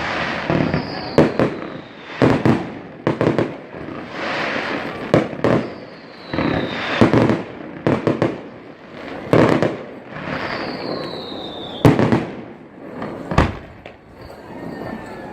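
Fireworks display: many loud, sharp bangs in irregular clusters, with a high whistle falling in pitch three times.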